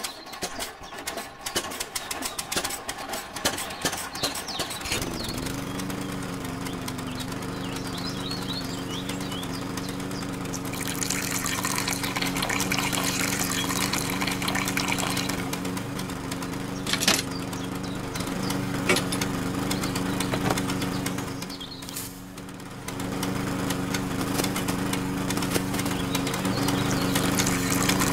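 Small electric motor of a homemade toy tractor humming steadily after a few seconds of clicks and handling, driving a toy machine through a belt. The hum drops out briefly about three-quarters of the way through, then runs on.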